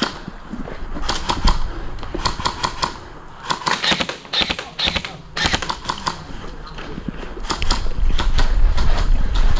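Airsoft rifles firing short full-auto bursts, about five bursts of rapid clicking shots in the first six seconds. A low rumble swells toward the end.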